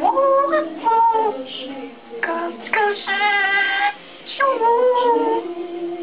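African grey parrot singing a tune in a human-like voice: a run of sung notes with pitch glides and short breaks, and one long held note about three seconds in.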